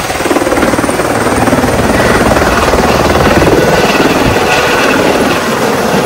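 Airbus H130 (EC130) single-engine turbine helicopter lifting off: loud, fast, even rotor chop over turbine and rotor noise, swelling slightly as it rises off the pad.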